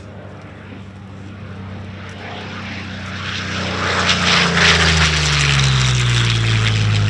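Curtiss-Wright P-40N Warhawk's Allison V-12 engine and propeller making a fly-by: the sound grows steadily louder as the fighter approaches, peaks about four to five seconds in, and then its pitch drops as it passes.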